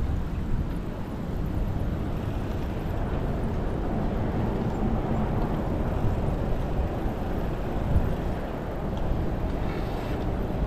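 Steady low wind rumble and road noise picked up by a camera riding on a moving bicycle, with no clear tones or voices.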